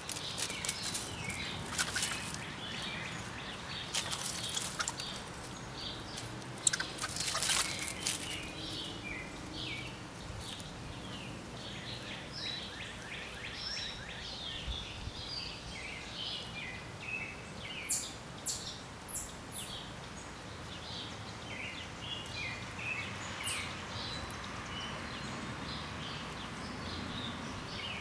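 Wild songbirds chirping and singing in short phrases, with bursts of crackling rustle in the first several seconds. Three sharp, very high chirps in quick succession a little past the middle are the loudest sounds.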